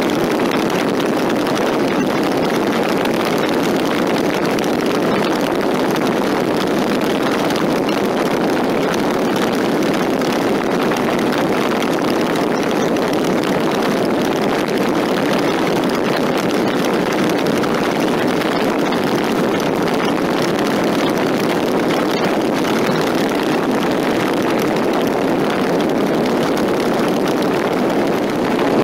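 Motorcycle cruising on the open road, heard from the rider's seat: a steady, even rush of wind over the microphone mixed with engine and road noise.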